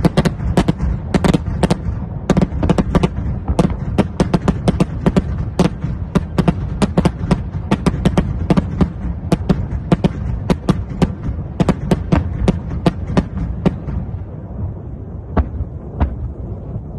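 BM-21 Grad multiple rocket launchers firing a salvo: a rapid, irregular string of sharp cracks, several a second, over a continuous low rumble. The firing thins out about fourteen seconds in, with a couple of last cracks near the end.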